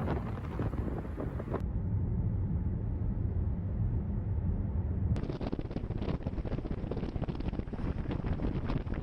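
Wind buffeting the microphone, a dense low rumble, in sandstorm footage. The sound changes abruptly twice, about a second and a half in and about five seconds in.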